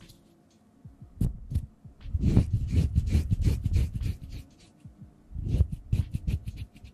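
Hands rubbing and brushing together right up against a microphone, a close, boomy rustle that comes in bursts: briefly about a second in, then a longer stretch from about two to four seconds, and again near the end, with near-quiet pauses in between.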